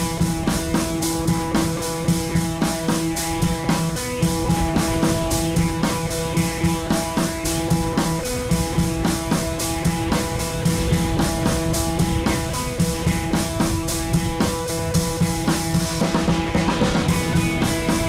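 Background rock-style music with a steady drum-kit beat and guitar, starting abruptly.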